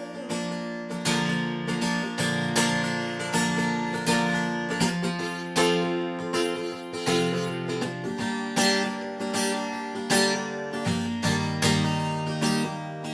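Acoustic guitar strumming chords in a steady rhythm, about two strums a second, with no singing: an instrumental passage between verses of the song.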